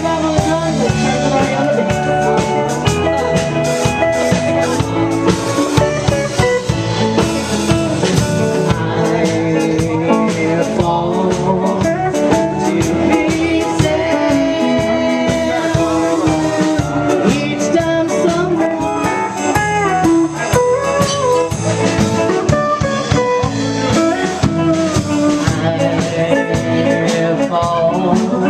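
Band music in a blues style: guitar and a drum kit play a steady beat, with a singing voice.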